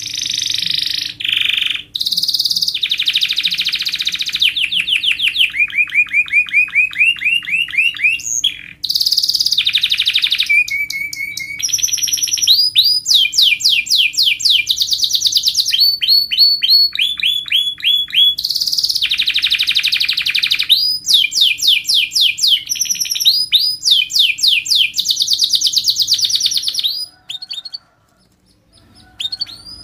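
Domestic canary singing a long, unbroken song of tight, fast rolls and runs of quick rising notes, breaking off near the end.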